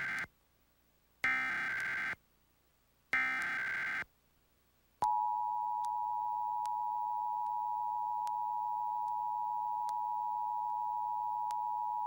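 Emergency Alert System test tones: the tail of one SAME digital header burst, then two more screeching data bursts of about a second each with silence between. About five seconds in, the steady two-tone EAS attention signal starts and holds.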